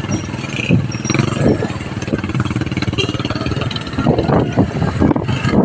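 Motorcycle engine running steadily while riding through street traffic.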